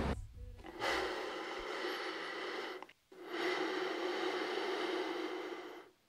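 Rushing, sound-designed noise in two long swells of about two seconds each, separated by a brief silence, each cutting off abruptly.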